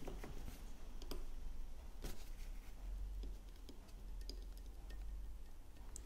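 Faint light clicks and taps of a metal dental explorer and gloved fingers handling a small plastic bathymeter holding cured composite, over a steady low hum.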